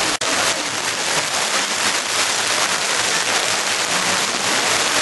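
Steady rain falling, an even hiss that cuts out for an instant about a quarter of a second in.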